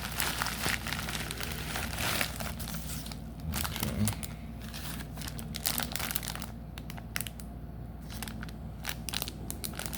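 Crinkling and tearing of a trading-card pack's wrapper as it is handled and opened by hand, in irregular crackles that are densest in the first few seconds.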